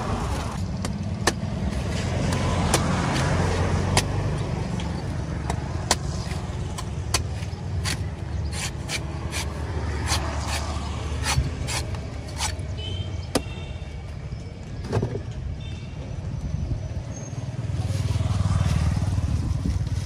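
A knife chopping and shaving the husk off a young green coconut on a wooden block: sharp, irregular chops, some in quick runs. Under them a steady low rumble of passing road traffic.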